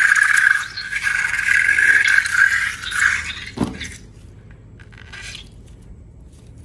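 Rubber balloon squealing at a steady high pitch with brief breaks, ending about three and a half seconds in with a quick drop in pitch, then faint handling noise.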